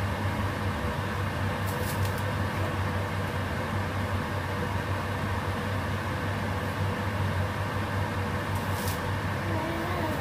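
Induction cooktop running under a saucepan of soup: a steady low hum with fan-like noise, and a couple of faint brief ticks.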